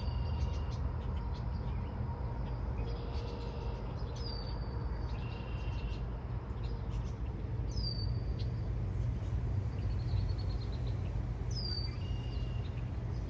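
Birds calling: a high call that drops sharply in pitch then holds briefly, repeating about every four seconds, with other shorter chirps between, over a steady low rumble.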